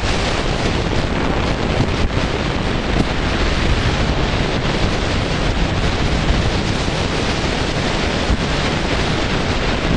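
Wind buffeting the microphone of a camera riding along on a moving motorbike, a loud, even rush of noise.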